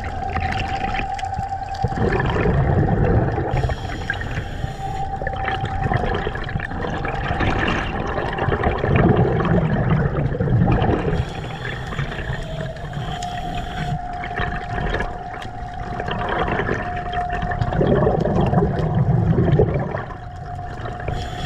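Underwater sound through a camera housing while a diver swims: water rushing past in swells every few seconds, over a steady high hum.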